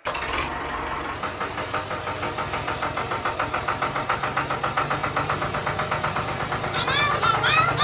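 A small engine running steadily with a rapid, even chugging, and a few short high-pitched sounds near the end.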